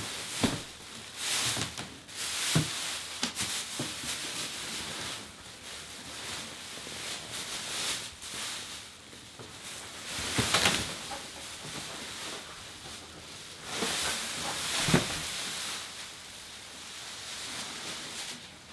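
Plastic wrapping crinkling and rustling as padded chair parts are handled and pulled out of a cardboard box, with a few sharp knocks and bumps.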